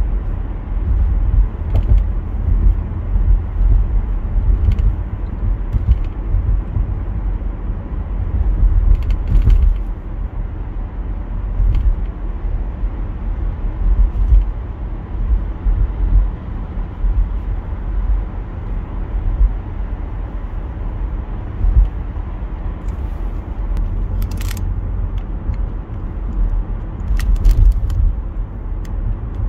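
Road and engine noise of a moving car heard from inside the cabin: a steady low rumble, with a few brief clicks, one sharper near the end.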